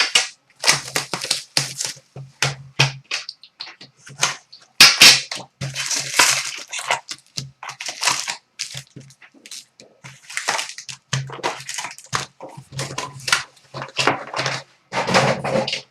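Card packaging being torn open and crinkled by hand: a long run of irregular crackling, rustling wrapper noise as a new box of hockey card packs is opened.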